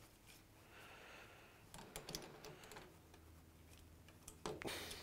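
Faint clicks and light rattles of slip-joint pliers and a spring hose clip being worked as a washing machine drain hose is pushed back onto the pump outlet, with a few sharper clicks near the end.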